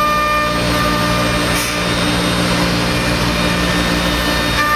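5-axis CNC router spindle running with a steady whine while its end mill cuts into a wooden block, over a constant hiss of cutting.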